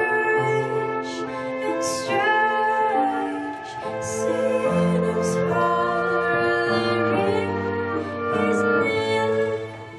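A small live ensemble playing slow, sustained music: long held notes and chords that change about every second, with a few sliding notes, dropping away near the end.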